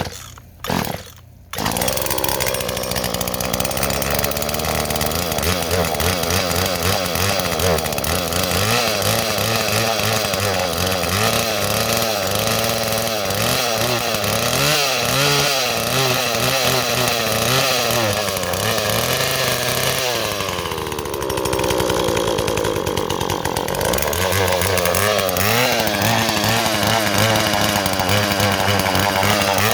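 Husqvarna 240 two-stroke chainsaw pull-started, catching after a couple of quick pulls, then running on choke with its speed wavering up and down. It sags low for a few seconds before picking back up, an uneven run that calls for carburetor adjustment.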